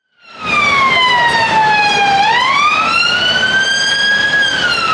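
Emergency vehicle siren wailing in slow sweeps of pitch, over traffic noise. It falls for the first two seconds, rises until near the end, then begins to fall again.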